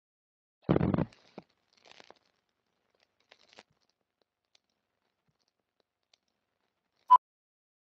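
Film countdown-leader sound effect: a short burst of crackly noise about a second in, a few faint scattered crackles and clicks, then a single short sharp beep near the end, the countdown's 'two-pop'.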